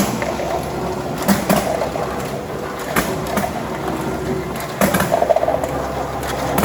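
Counting machine running with a steady hum and rattle, as dog treats are fed through it; irregular sharp clacks of hard treats dropping into the container, with a cluster about five seconds in.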